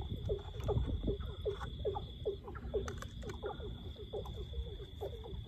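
Frogs calling in a chorus: many short croaks, several a second, over a steady high insect trill that breaks off briefly a little before the middle.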